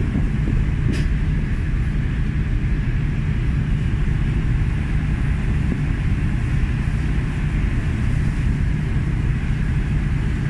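Steady low drone of a ship's engine, heard from on deck, with one sharp click about a second in.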